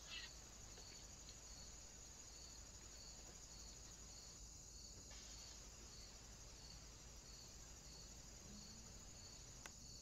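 Faint steady chirring of insects, with a pulsing note repeating about twice a second. A brief sound just after the start and a single sharp click near the end.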